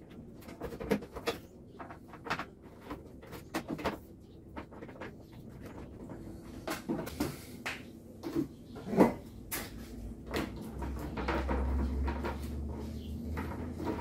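Electrical cable being wound by hand around a coil on a wooden workbench: irregular knocks and scrapes of the coil and cable against the bench. A low hum comes in about ten seconds in.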